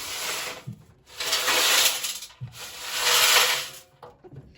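Damaged Hoover washer-dryer drum turned by hand, scraping as it rubs against something on three passes. The drum is catching, which he puts down to a bend in the drum or its rim.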